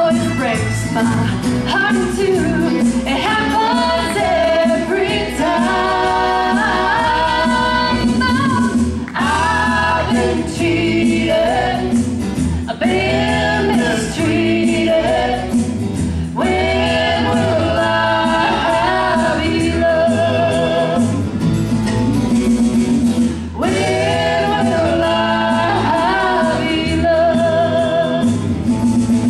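A woman singing lead into a microphone with a live band of guitars, bass and drums, holding long notes with vibrato between phrases.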